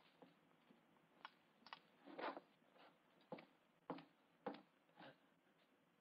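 Faint footsteps at a steady walking pace, a short knock about every half second, over a low background hiss.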